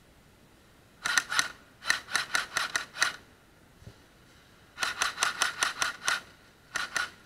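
Airsoft gun firing quick single shots in four short strings, about five shots a second, with pauses of about a second between strings.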